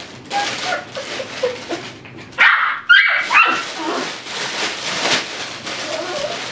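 Young Tibetan Terrier puppy whining, with two loud high-pitched yips about halfway through, over short scuffling noises.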